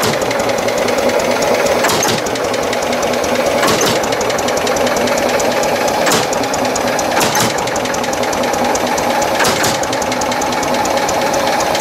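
Tractor engine running steadily with a fast, even knocking beat, with a few separate sharp knocks every second or two.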